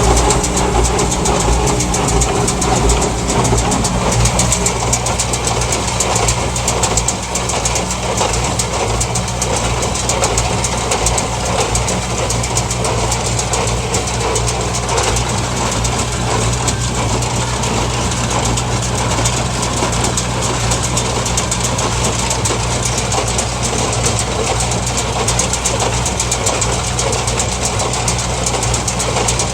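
New Holland TS90 tractor running steadily under load while driving a New Holland BC5070 small square baler, with the baler's rapid mechanical clatter over the engine.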